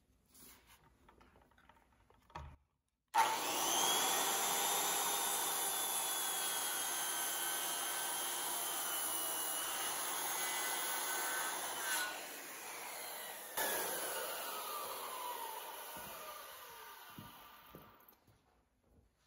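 Handheld circular saw starting suddenly about three seconds in and running steadily as it cuts a relief kerf along the mortise line of a softwood timber beam. Near the end its whine falls in pitch and fades away.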